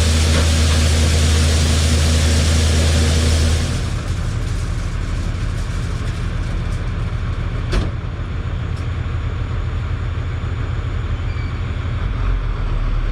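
John Deere 9500 combine running: a steady low engine hum under a loud hiss. About four seconds in the hiss drops away, leaving a lower rumble, with one sharp click near eight seconds.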